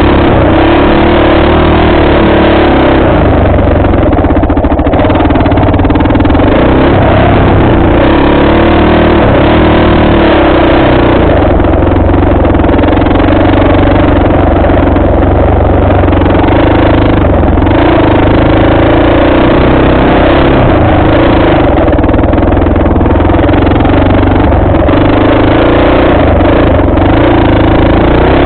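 Dirt bike engine running continuously while riding a trail. Its pitch rises and falls with the throttle, loud and close.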